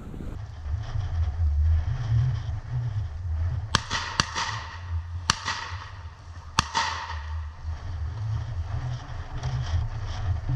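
Four shotgun shots in quick succession, the first and last ringing out afterward, over steady low wind rumble on the microphone.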